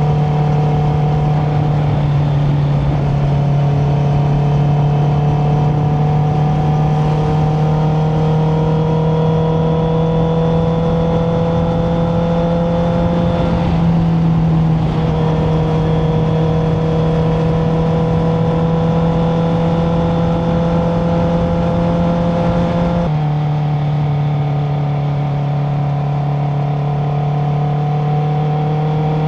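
Honda CBR650R's inline-four engine through an Akrapovic titanium exhaust, running steadily under way. The pitch climbs slowly and drops back twice, about halfway through and again near the three-quarter mark, under a constant low hum.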